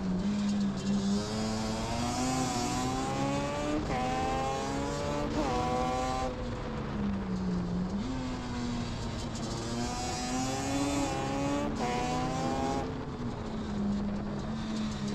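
Yamaha Banshee 350's parallel-twin two-stroke engine pulling hard up through the gears, its pitch climbing and snapping back at each shift. About six seconds in the rider backs off and the revs fall, then it climbs through the gears again before settling to a steady lower note near the end.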